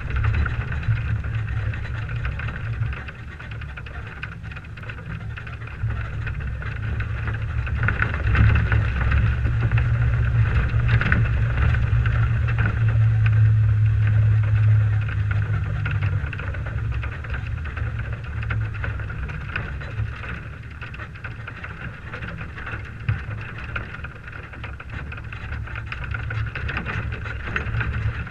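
1998 Toyota 4Runner's engine running at low speed as the truck drives, heard as a steady low drone that swells from about eight seconds in, stays louder for several seconds, then eases off.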